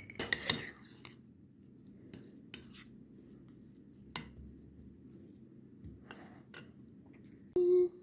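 Scattered light clicks and taps of kitchen utensils against dishes, about half a dozen spread across the few seconds, with quiet between them.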